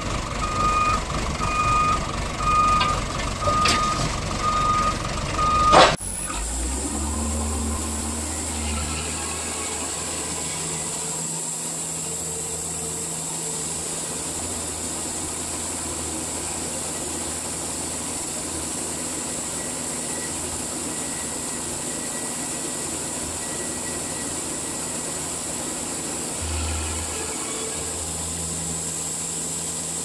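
A backup alarm beeps over and over above a loader tractor's running engine. About six seconds in, the sound cuts to a band sawmill's machinery running with a steady hum and a thin high whine, and a deeper rumble comes in twice, the second time near the end.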